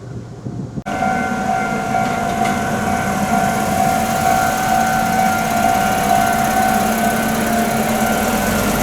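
Japanese level crossing warning alarm ringing steadily, a high electronic clanging tone held at an even loudness. It comes in suddenly about a second in, cutting off the sound of a passing train.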